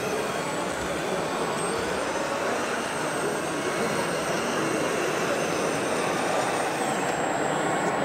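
Steady din of a crowded indoor exhibition hall, with a faint high whine that stops near the end.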